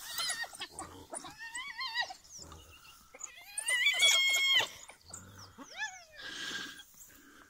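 Spotted hyenas and African wild dogs calling during a fight. The calls are high-pitched, wavering and falling squeals, the loudest and longest about halfway through, followed near the end by a short harsh rasp.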